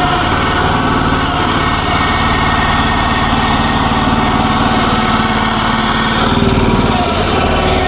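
Future FT15 mini excavator's small gasoline engine running steadily.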